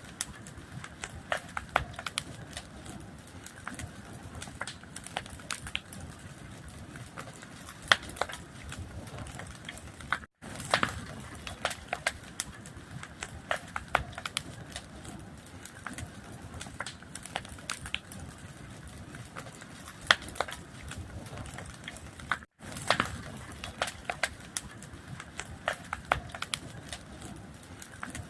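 A fire crackling steadily, with scattered sharp pops over a low rushing hiss. The sound cuts out briefly twice, where a short recording loops.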